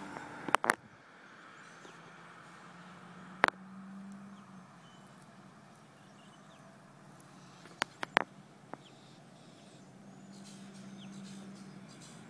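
Quiet open-air ambience with a faint, distant low hum that swells twice, broken by a handful of sharp clicks: two close together near the start, one at about three and a half seconds, and a quick cluster around eight seconds.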